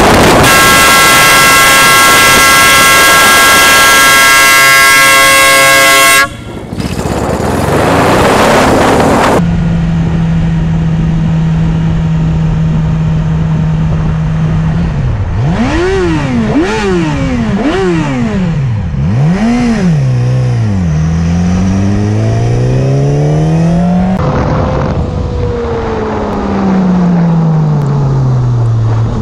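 A horn blares steadily over loud wind noise for about six seconds, then cuts off. A motorcycle engine then runs steadily, is revved sharply up and down several times, climbs in pitch as it accelerates, and falls in pitch as it slows.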